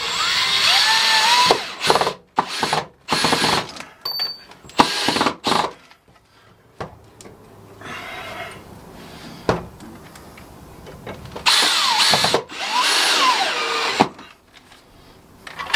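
Cordless drill driving screws into a timber gatepost to fix a gate latch catch, in short runs whose motor pitch rises and falls as it loads. There is a pause of several seconds in the middle before two more runs near the end.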